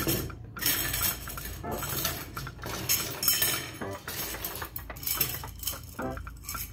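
Thin steel rods, the cores of welding rods, clinking and rattling against each other and against a copper pipe as they are pulled out of the pipe's holes and gathered by hand. The clinks come in an irregular run throughout.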